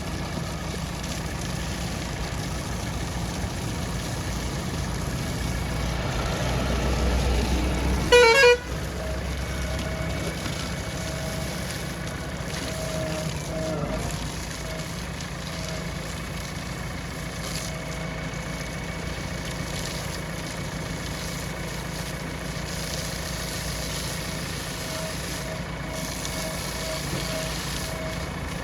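Diesel engine of a JCB 3DX backhoe loader running steadily while it works, growing louder for a few seconds before a brief loud sound with a fast-rising pitch about eight seconds in.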